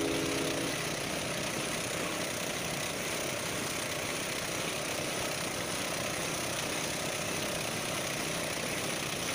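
Motorized outrigger boat's engine running steadily as the boat cruises over open water.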